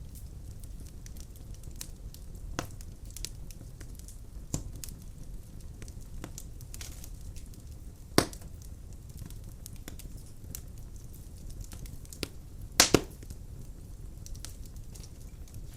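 Wood fire burning in a fireplace: a low steady rumble of flame with scattered sharp crackles and pops. The loudest pop comes about eight seconds in, and a quick double pop comes near the end.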